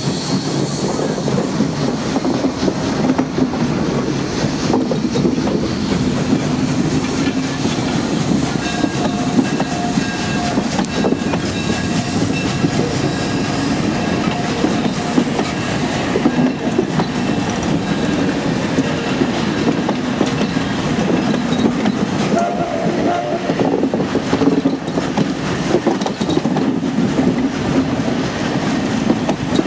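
Steam-hauled passenger train passing close by: the steam locomotive first, then the passenger coaches rolling past, their wheels running over the rail joints. Faint high tones come and go in the middle.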